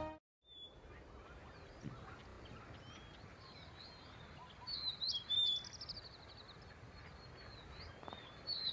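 Birds calling over a faint, steady outdoor background: scattered short high chirps, with louder groups of calls about five seconds in, including a quick run of repeated notes, and again near the end.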